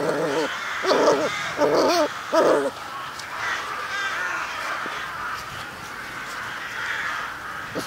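Puppies whining and yelping, four short wavering cries in the first three seconds, then quieter.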